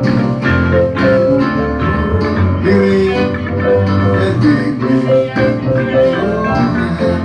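Instrumental music with a steady beat and bass line, bright plucked or struck melody notes on top.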